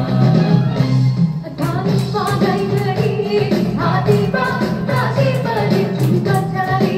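A song with singing over a steady instrumental backing.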